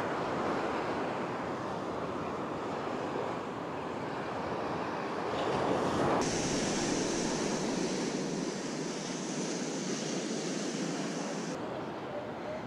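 Surf breaking and washing on a beach, a steady hiss of waves with some wind on the microphone. The sound turns abruptly hissier about six seconds in and changes back near the end.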